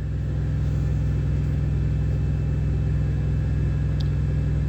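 Steady low droning hum, as of an idling vehicle engine, with a faint small click about four seconds in.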